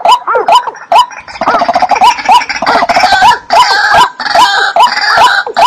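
Calls of a wetland bird: short hooked notes, each with a sharp click, repeated about three times a second, thickening after about a second and a half into a denser run of overlapping calls.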